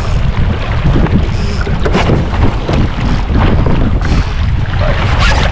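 Wind rumbling loudly on the microphone, with water splashing and slapping against the hull of an International Canoe sailing at speed; the sharpest splashes come about two seconds in and near the end.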